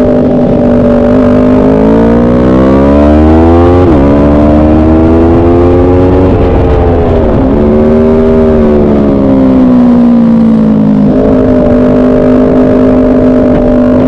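Onboard sound of a motorcycle engine at track speed. It revs up, drops sharply about four seconds in as a gear is changed, rises and falls again through the middle, and steps to a steady note near the end.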